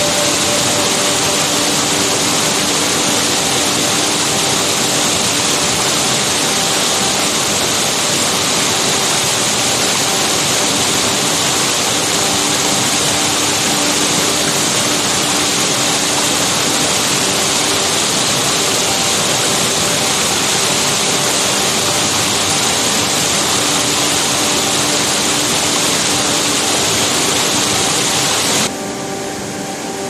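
Waterfall: water rushing steadily down a rocky cascade. About a second before the end the rush cuts suddenly to a quieter, less hissy rush.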